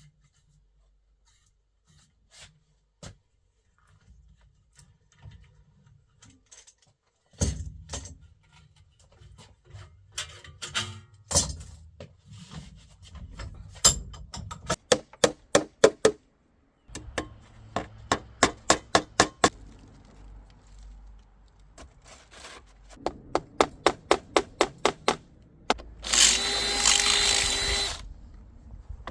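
Woodworking on a birdhouse: runs of quick, sharp knocks on wood, about five a second, then a power drill running for about two seconds near the end.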